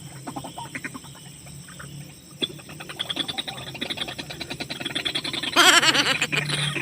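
White-breasted waterhens (ruak-ruak) calling in fast, rattling croaks. The calls grow louder after about two and a half seconds, and the loudest, wavering call comes near the end.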